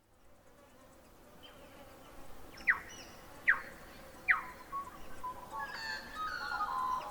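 Birds calling over a steady hiss of outdoor ambience that fades in from silence. Three sharp calls sweep quickly down in pitch about a second apart, then several overlapping calls and song phrases follow near the end.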